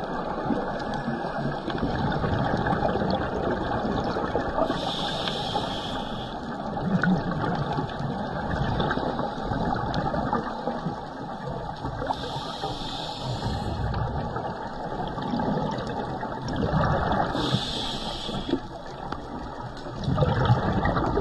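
Scuba diver's regulator breathing recorded underwater: four hissing breaths at irregular intervals, with bubbling and a steady muffled rush of water between them.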